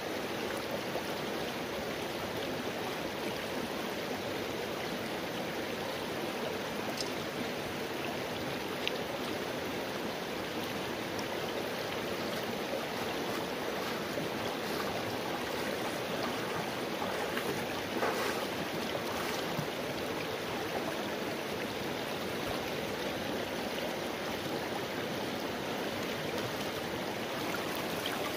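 Shallow stream flowing steadily over rocks with a continuous rippling rush of water.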